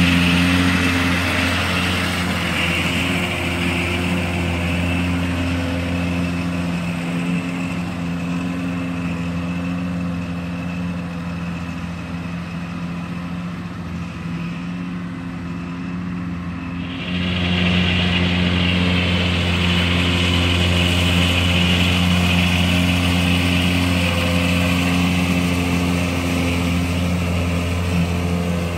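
Massey Ferguson WR9980 self-propelled windrower running steadily as it cuts a standing crop, a continuous engine drone. It fades somewhat in the middle, then comes back louder all at once a little past halfway.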